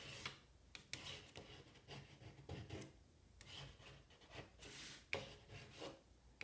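Graphite stick scratching across drawing paper in faint, irregular strokes as lines are drawn.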